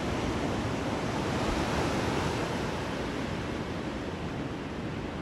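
Ocean surf breaking: a steady rushing wash of waves that swells a little about two seconds in.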